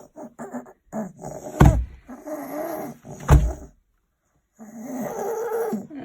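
A young child with croup giving two harsh barking coughs about a second and a half apart, with noisy, pitched breathing sounds between and after them. The seal-like bark comes from swelling of the voice box and windpipe and is the typical sign of croup.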